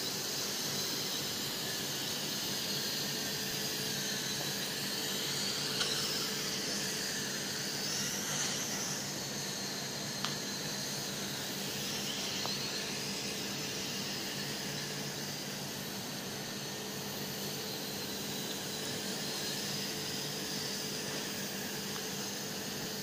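Night Lions Tech N227 toy quadcopter's motors and propellers whining steadily as it hovers and climbs, the pitch swinging up and down about six to nine seconds in. Two short clicks, about six and ten seconds in.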